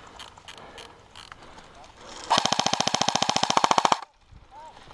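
Airsoft rifle firing one full-auto burst of about a second and a half, a rapid, even clatter of shots starting about two seconds in and cutting off suddenly.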